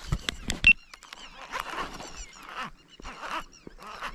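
Birds chirping with short, repeated falling calls, after a few sharp knocks and clicks in the first second.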